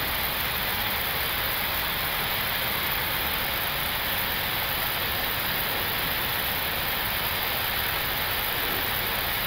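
Steady rushing noise inside an Airbus A321neo flight deck in flight: airflow around the cockpit and the engines blending into one even hiss that holds the same level throughout.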